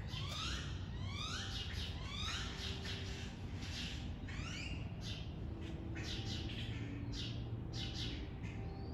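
Birds chirping: many short, high calls, rising in pitch, repeating several times a second with small breaks.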